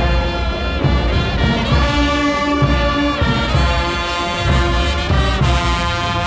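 Brass music playing: trumpets and trombones in held melodic notes over a pulsing bass.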